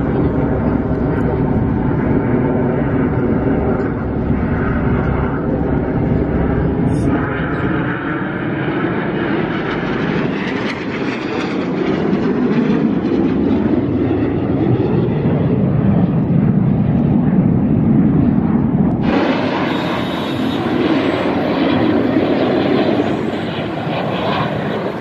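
Jet engines of a formation of aerobatic display jets flying overhead, a steady loud roar that swells and fades as they pass. The sound changes abruptly about 19 seconds in.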